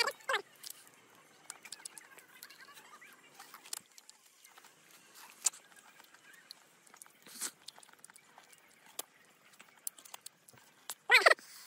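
Ripe mango being peeled by hand and bitten into: soft tearing and scattered small clicks, with faint chirping behind. A short, loud voice-like cry about eleven seconds in.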